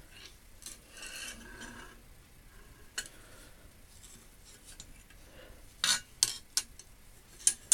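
An old steel hand tool being handled and set down: faint rubbing and scraping, then a few sharp metallic clinks near the end.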